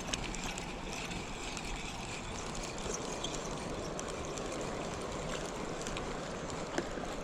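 Steady lake ambience: water lapping and moving, with a few faint small clicks.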